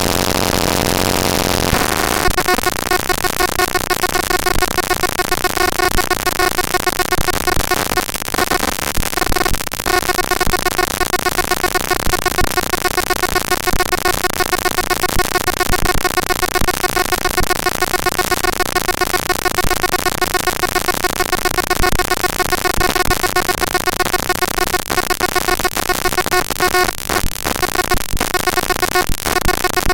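Raw network packet-capture text (tshark output) played straight through a sound card as big-endian float samples: harsh, dense digital noise with steady buzzing tones running through it. The texture changes about two seconds in, and it breaks up briefly a few times.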